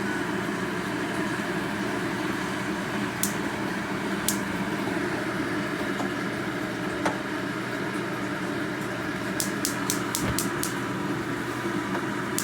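Gas stove spark igniter clicking in a rapid run of about six clicks a second near the end, with a few single clicks earlier, over a steady mechanical hum.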